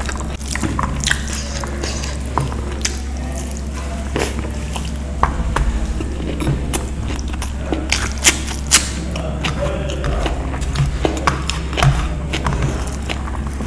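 Close-miked hand mixing and squeezing spiced rice on a steel plate: wet, sticky squishes with scattered sharp clicks and small smacks, over a steady low hum.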